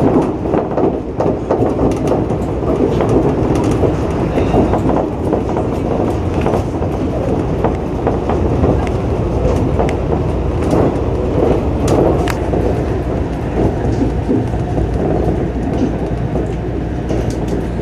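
Shonan Monorail 5000-series suspended monorail car running at speed, heard from inside the front of the car. Its rubber tyres run inside the box-shaped track beam with a steady noise, and scattered clicks and knocks come through the car body.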